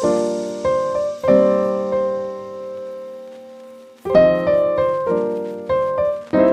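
Background piano music: chords struck one after another, each ringing out and fading, with one long sustained chord in the middle.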